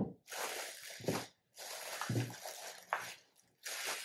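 Clear plastic packaging bag crinkling and rustling in three stretches as it is handled and opened, with a short dull thump about two seconds in.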